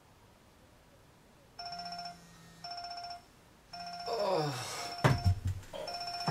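Wake-up alarm ringtone sounding in repeated bursts of a few steady electronic tones, starting about a second and a half in. About four seconds in, a falling groan-like sound comes over it, followed by two loud thumps, one about five seconds in and one at the very end.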